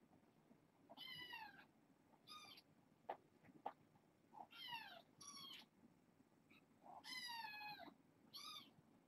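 Young kittens meowing: about six short, high-pitched meows, each falling in pitch, the longest near the end, with a few faint clicks in between.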